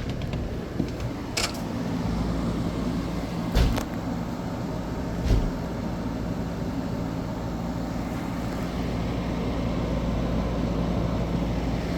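Older LG 8,000 BTU window air conditioner running and cooling: a steady compressor hum with fan noise. A few brief knocks sound in the first half.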